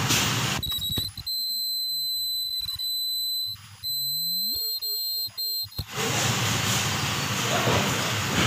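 Steady machine running noise that gives way, about a second in, to a steady high-pitched tone lasting about five seconds, before the running noise returns.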